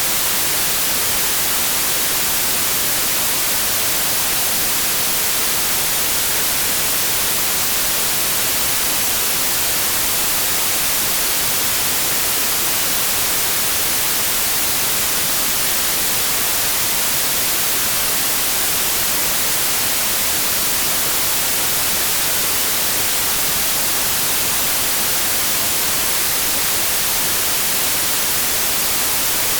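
Steady white noise: an even, unbroken hiss, brightest in the high end.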